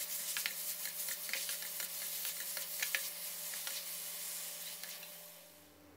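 Long eggplant, minced pork and Thai sweet basil sizzling in oil in a steel wok as a spatula stirs and tosses them, with many quick scraping clicks of the spatula on the pan. The sizzle fades out near the end.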